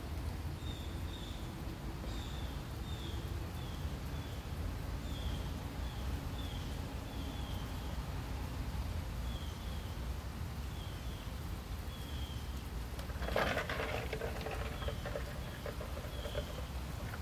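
Outdoor yard ambience: a small bird chirping short, often paired high notes about once a second over a low steady rumble. About thirteen seconds in, a louder sound with a held tone rises over it and lasts two or three seconds.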